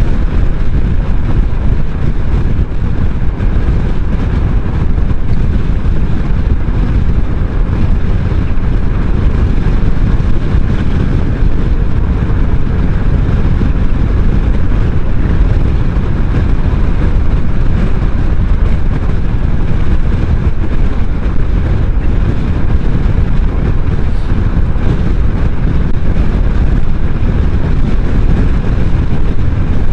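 Steady rush of wind and road noise from a maxi-scooter cruising at highway speed, heaviest in a low rumble of wind buffeting the microphone, with the engine's drone buried in it.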